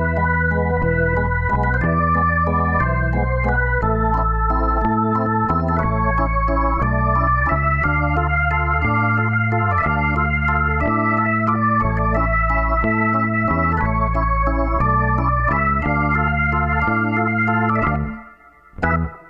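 Background music of sustained organ-like keyboard chords over a bass line that changes about once a second, dropping out briefly near the end.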